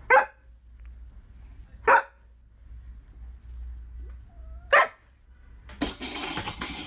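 A large husky-type dog barking three short, sharp barks spaced a couple of seconds apart, followed near the end by about a second of rough noise.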